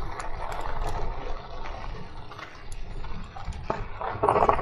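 Ride noise from a Crooked Path Rogue electric bike on a gravel path: tyres rolling over gravel with scattered small clicks and rattles, over a steady low rumble. A louder rough patch comes near the end.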